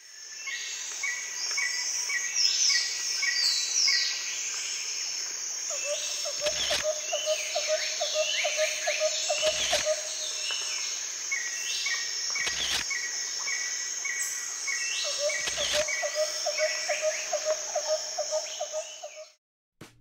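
Outdoor nature ambience: several birds singing and calling, with repeated chirps and falling whistled notes, over a steady high insect drone. A lower pulsed trill comes in twice, and there are a few soft thumps about every three seconds. The sound fades out shortly before the end.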